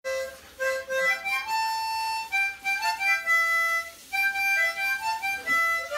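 Harmonica playing a melody of short notes with a few longer held ones.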